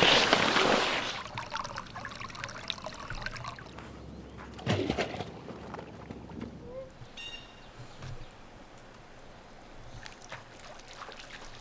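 Swimming-pool water splashing and sloshing, loudest in the first second, then quieter lapping with another short splash about five seconds in.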